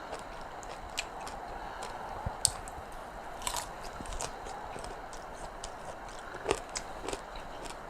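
A person chewing and biting food close to the microphone, with short, scattered crunchy clicks.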